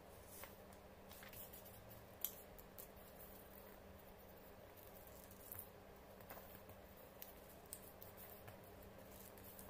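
Faint rustling and tapping of origami paper being folded and creased by hand, with one sharper tap a little over two seconds in. A low steady hum sits underneath.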